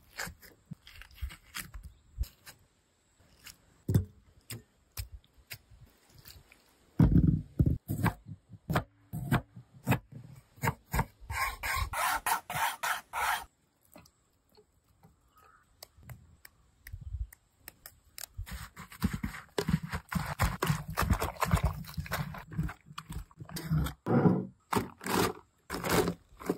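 Food preparation: a metal spoon scraping and scooping into soft watermelon flesh, with irregular knocks and wet scrapes, and ice cubes clinking near the end.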